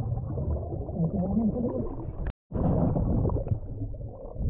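Muffled underwater sound of a diver in a creek: low rumbling and gurgling, with a wavering, voice-like tone about a second in. A click and a short dead gap just after two seconds mark a cut in the audio.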